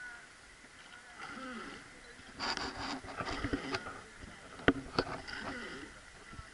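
Wooden oar of a river boat stroking and splashing through the water, with two sharp knocks about a third of a second apart a little after the middle.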